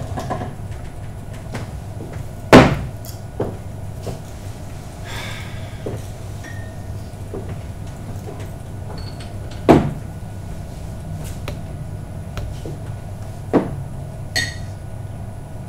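Knocks and thumps of things being handled and set down behind a wooden bar counter, the loudest about two and a half seconds in, others near ten and thirteen seconds, and a brighter clink near the end, over a steady low rumble.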